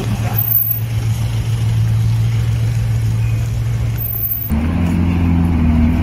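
Bugatti Veyron's quad-turbo W16 engine idling with a steady low hum. About four and a half seconds in, the sound changes abruptly to a Ferrari SF90's engine idling with a different, lower-pitched note.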